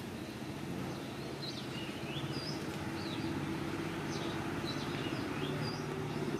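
Small birds chirping in short, repeated calls, starting about a second and a half in, over a steady low engine hum that grows slightly louder toward the end.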